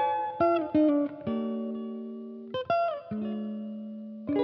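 Background music of plucked guitar: notes and chords struck every second or so, each ringing out and fading.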